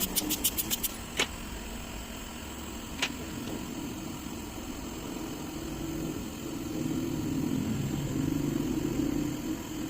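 A quick run of about seven sharp clicks, then two single clicks, over a steady low machine hum that grows a little louder in the second half.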